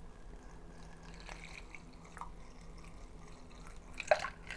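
Water being poured through a funnel into a latex balloon, with faint dripping and trickling and a sharper splash about four seconds in.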